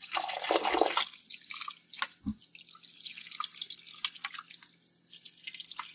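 Water poured into a stainless steel pot onto a brick of coco coir, hydrating it: a louder splashing pour in the first second, then a quieter trickle with scattered drips.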